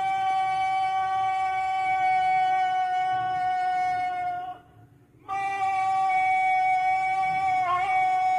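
Conch shell (shankh) blown in long, steady notes on a single pitch, with a short break for breath about halfway through and a brief waver in the note near the end.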